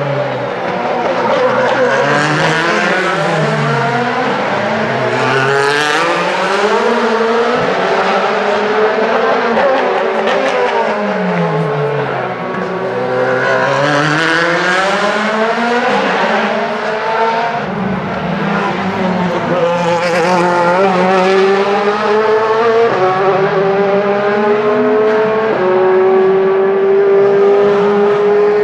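Several DTM race cars' 4-litre V8 engines going past one after another, each dropping in pitch as it passes. Toward the end one car accelerates, its note climbing in steps broken by a couple of gear changes.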